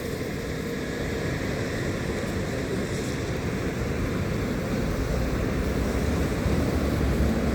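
Steady rushing noise of wind on the microphone and tyres on a wet road during a ride, with a low rumble growing stronger about five seconds in.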